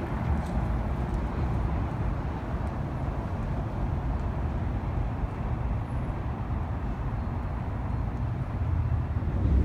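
Outdoor city ambience: a steady low rumble of passing traffic with no distinct events.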